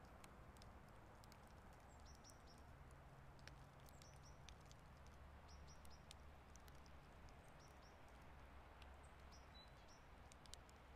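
Near silence: faint outdoor ambience with a steady low hum, soft scattered ticks and a few faint, short, high bird chirps.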